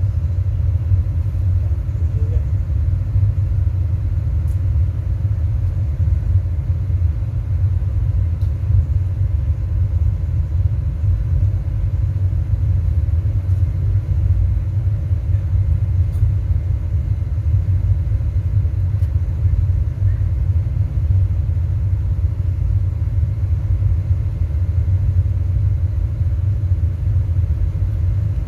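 Steady, loud deep bass rumble from a sound system's subwoofers during tuning, with no beat or melody.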